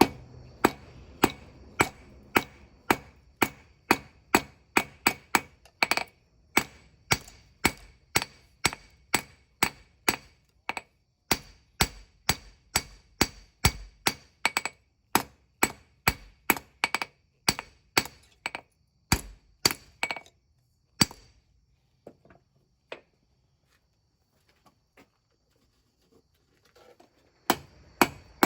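Hand hammer striking hot spring steel on an anvil to forge a small knife blade, a steady run of ringing blows about two a second. The blows stop about 21 seconds in, and after a quiet spell the hammering starts again near the end.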